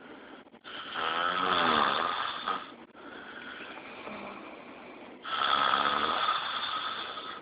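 A sleeping man snoring: two loud, rattling snores about two seconds long each, with quieter breathing between them.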